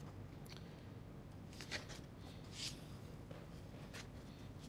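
Faint rustling and flicking of book pages being leafed through, a handful of short paper sounds over a low steady room hum.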